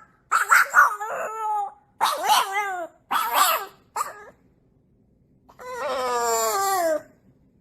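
A dog howling and whining: a run of short pitched calls, then one long call that falls in pitch near the end.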